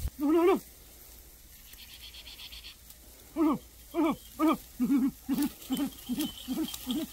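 Dogs barking: one bark at the start, then after a pause of about three seconds a rapid run of barks, about two a second and coming faster toward the end, as the dogs are set on to attack.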